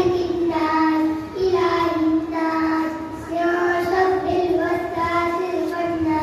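A young boy's solo voice chanting a religious piece in a melody of long held notes.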